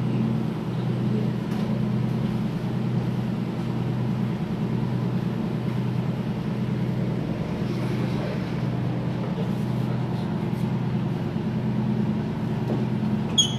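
A motor running with a steady low hum that does not change. A brief high-pitched blip comes near the end.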